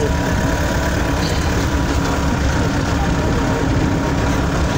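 Vehicle engine running and tyres rolling on a gravel dirt road, heard from inside the cab as a steady drone.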